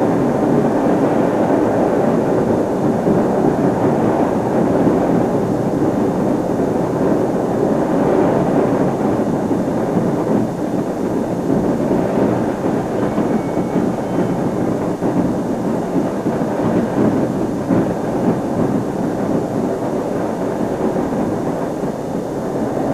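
Large football stadium crowd cheering as the home team takes the field, a dense steady roar of many voices, heard through a TV broadcast.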